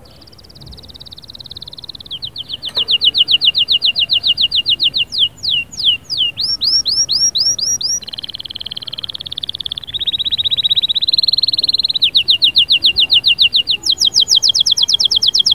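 Domestic canary singing a long unbroken song of rapid trills. Each phrase is a quick run of repeated notes, and a new phrase starts every couple of seconds: fast even trills, slower downward-swooping notes, and a lower buzzy roll in the middle.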